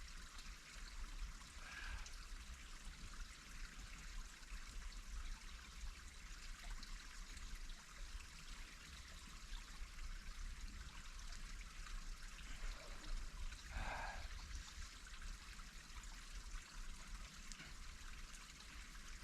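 Faint, steady hiss of running water, like a trickling stream, with two brief higher sounds about two seconds in and about fourteen seconds in.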